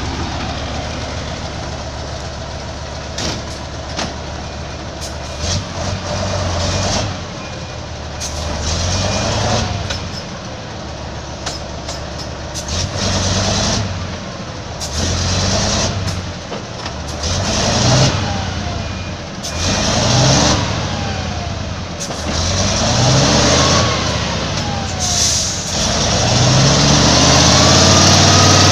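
Heavy truck engine revving up and dropping back again and again, with short sharp noises in between.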